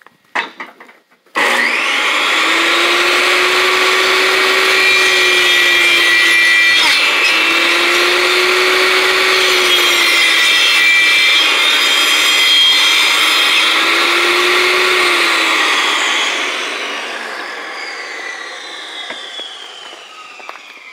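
DeWalt jobsite table saw switched on, coming straight up to speed after a few light knocks, and running loud and steady while a white panel is fed through the blade. Near the end it is switched off and winds down, the whine falling in pitch as the blade slows.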